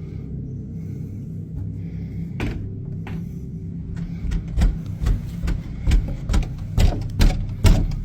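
A few sharp knocks, then a steady run of louder knocks at about two a second from around halfway, over a low steady hum.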